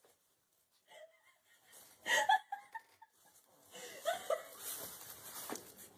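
A person laughing in short breathy bursts, starting about two seconds in.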